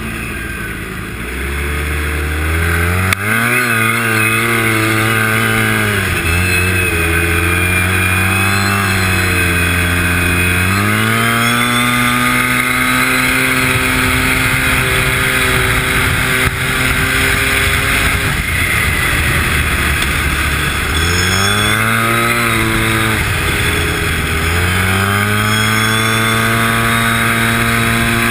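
Arctic Cat Z1 Turbo snowmobile's turbocharged four-stroke three-cylinder engine under hard acceleration at speed. It climbs steeply in pitch a couple of seconds in, again around ten seconds in and twice more near the end, easing off briefly between the pulls and holding high in between.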